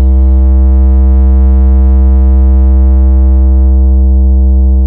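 A loud, sustained synthesizer bass note held on one pitch as a bass test tone, its deep fundamental carrying evenly spaced overtones above it; it starts to fade near the end.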